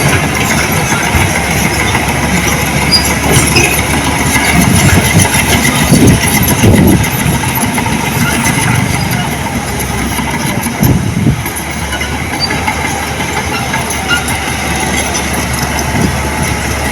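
Diesel engine of heavy earthmoving machinery running, a continuous low rumble that swells a few times, most strongly about five to seven seconds in and again about eleven seconds in.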